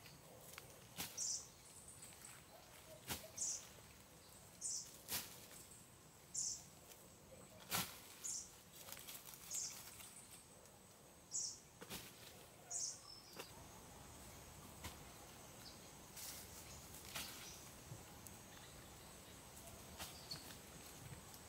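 A bird calling a short, high note over and over, roughly once every second or two, which stops about two-thirds of the way through. Scattered sharp clicks and knocks of hand work in soil and wood sound throughout.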